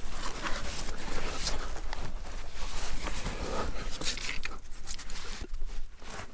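A climber's heavy breathing and grunts of exertion, with irregular scrapes and scuffs of hands, boots and clothing on sandstone as he pulls himself up a rock step.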